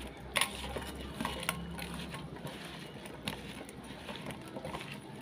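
A hand mixing raw hilsa fish pieces and taro stolons with oil and spice pastes in a steel bowl: soft squishing, with a few light clicks against the bowl.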